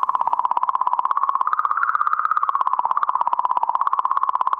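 Sonified magnetic-field oscillations of comet 67P, recorded by Rosetta's magnetometer (RPC-Mag) and turned into sound: a rapidly pulsing electronic bleeping tone whose pitch wavers slightly up and back down. The changes are thought to be caused by particles from the comet, and perhaps from the sun, travelling through the comet's magnetic field.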